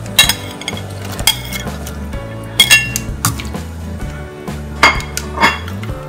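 Kitchen utensils clinking against a stainless steel pot as water spinach and Chinese broccoli stems are tipped in and stirred for blanching: a series of sharp, ringing clinks at irregular intervals.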